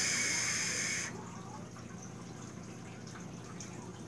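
A drag on a Fishbone rebuildable dripping atomizer with a 0.34-ohm coil: air hissing through the airflow holes past the firing coil. The hiss stops sharply about a second in, leaving only a faint hiss.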